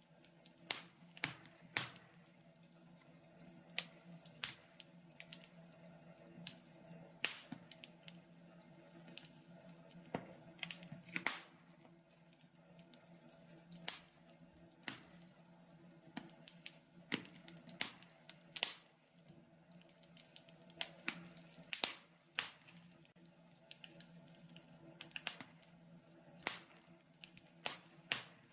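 Fire burning in a fireplace, crackling with irregular sharp pops, over a faint steady low hum.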